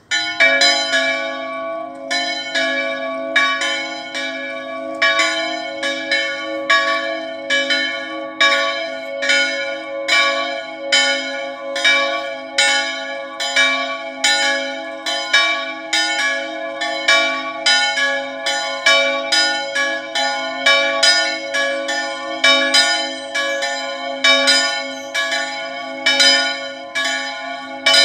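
Two swinging church bells, tuned to D and F and swung by motor on wooden headstocks, ring together in a festive peal. Their clappers strike in a loose alternating rhythm, somewhat under two strokes a second, over a steady hum of ringing tones. The peal starts suddenly at the outset, and only the two smaller bells of the three-bell ring sound because the largest bell's motor is broken.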